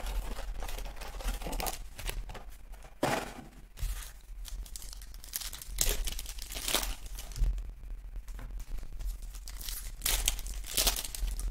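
A cardboard Donruss Optic blaster box is torn open, then the foil trading-card packs inside crinkle as they are handled and one is ripped open. The sound comes as several short, sharp rips with crinkling in between.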